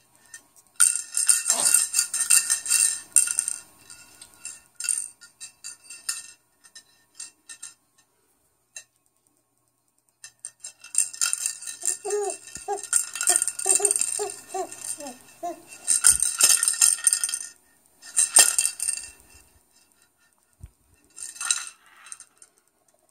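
Bursts of rattling and jingling, several seconds at a time, with a baby babbling for a few seconds about halfway through.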